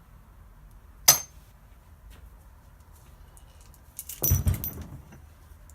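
Small metal parts and tools clinking as they are handled: one sharp click about a second in, then a brief metallic clatter around four seconds in.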